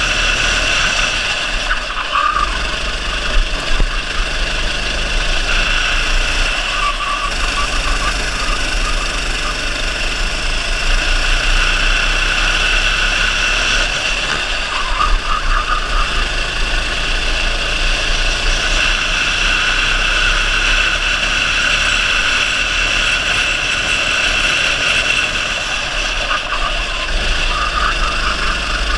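Go-kart engine running at racing speed, heard onboard through a helmet-mounted action camera as a steady high-pitched drone over wind rush. The note shifts briefly a few times as the kart goes through corners.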